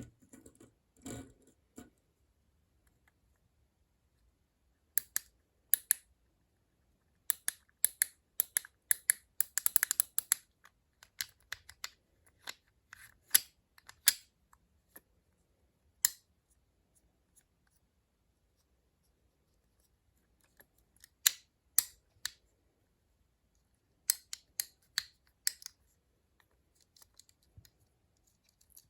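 Sharp plastic clicks from a fidget cube's buttons and switches being pressed, in scattered bursts with quiet pauses between them.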